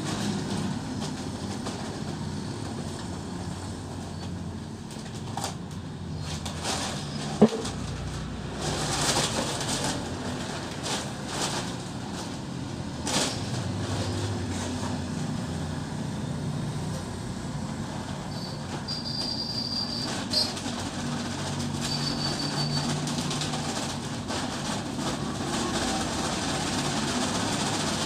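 A plastic bucket scraping into a heap of sand and sand being poured into sacks, in short rasping strokes over a steady rumble of road traffic. A single sharp knock about seven seconds in.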